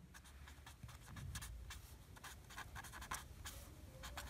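Pen writing on paper: faint scratching in many short, uneven strokes.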